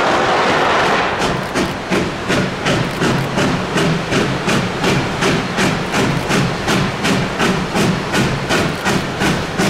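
K-36 steam locomotive working hard, its exhaust chuffing in an even rhythm of about three sharp beats a second. The beats begin about a second in, after a steady rushing noise.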